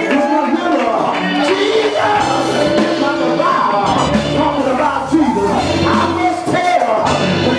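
Live gospel music in church: voices singing over a band, with long held bass notes.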